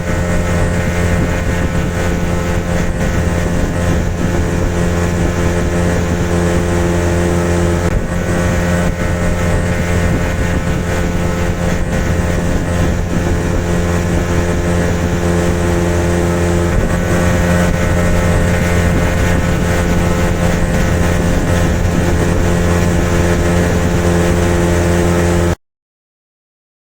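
Motorboat engine running steadily at an even pitch, with a constant low hum over a wash of noise, then cutting off abruptly near the end.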